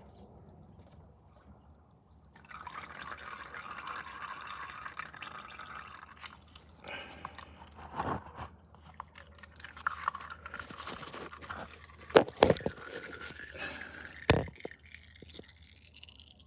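Engine oil draining in a stream and dripping into a drain pan as the oil filter is slowly loosened. A few sharp knocks come about 8, 12 and 14 seconds in.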